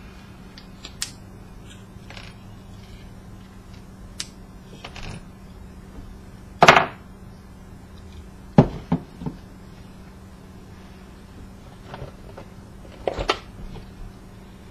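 Handling noise from dismantling a copper-wound coil assembly in a black plastic housing on a workbench: scattered clicks and knocks of plastic and metal parts and hand tools being picked up and set down. The loudest is a short clatter about halfway through, followed by a few sharp knocks and another cluster near the end.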